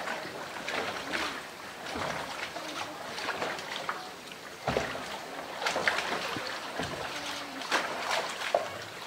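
Hollow blue plastic drum knocking and scraping as a polar bear bites and tugs at it at the water's edge, with water sloshing around it. The knocks come irregularly, the sharpest about five, six and eight seconds in.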